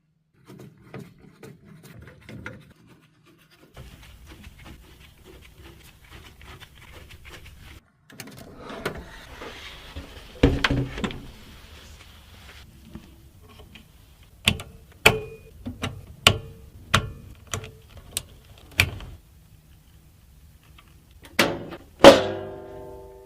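Hands handling PC components: soft rustling and shuffling, then a run of about seven sharp clicks spaced a little over half a second apart. Near the end come two loud knocks, the second ringing on with a metallic tone.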